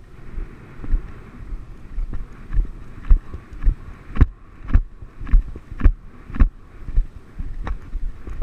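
A horse cantering over grass: an even rhythm of hoofbeats at about two strides a second, growing louder about halfway through, with wind rushing on the microphone.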